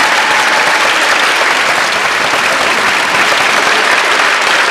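A large audience in a sports hall applauding steadily at the end of a routine.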